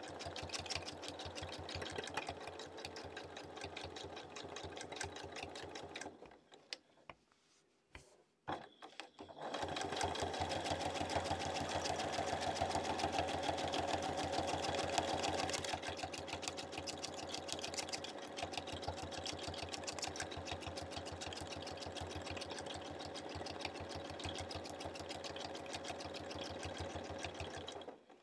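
Domestic sewing machine free-motion quilting, its needle stitching in a fast, even run of ticks. About six seconds in it stops for roughly three seconds, with a couple of clicks, then starts stitching again, louder for a few seconds before settling back.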